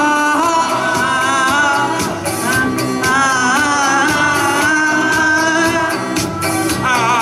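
A woman singing a melody into a handheld microphone over backing music, amplified through PA speakers in a large hall.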